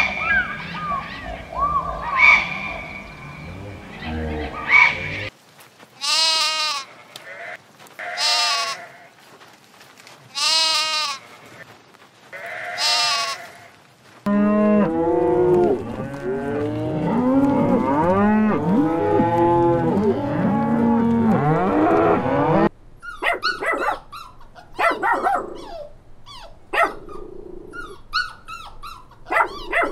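A run of animal calls. It begins with short chirping calls, then a young goat bleats four times, each bleat about a second long. From about halfway, many livestock call over one another for some eight seconds, and near the end a dog yips and whines.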